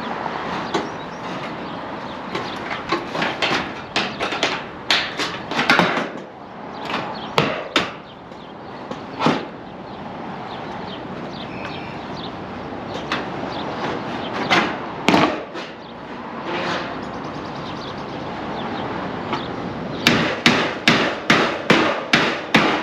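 Hammer blows on the roof, irregular at first, then a quick run of about eight evenly spaced strikes near the end, over a steady rush of wind.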